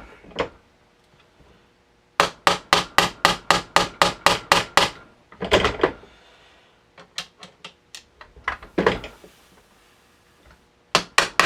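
Light hammer taps seating a part into a pump-action shotgun during reassembly. A fast run of about a dozen sharp taps, roughly five a second, is followed by a few scattered taps and knocks.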